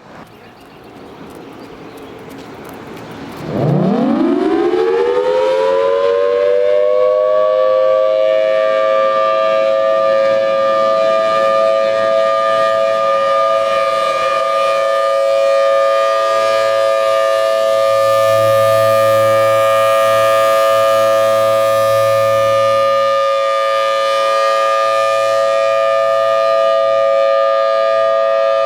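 Federal Signal Thunderbolt 1003 outdoor warning siren starting up. About three and a half seconds in, its pitch winds up quickly from low and levels off into a steady, loud chord of two close tones with a higher tone above, which it holds as a steady alert for its test.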